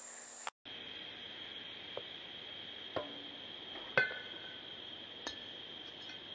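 Steady high drone of summer insects, with a few sharp knocks of tennis-ball hits. The loudest, about four seconds in, has a brief ringing tone.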